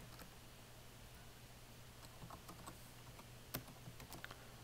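Faint computer keyboard typing: a few scattered key clicks, the sharpest about three and a half seconds in, over a steady low hum.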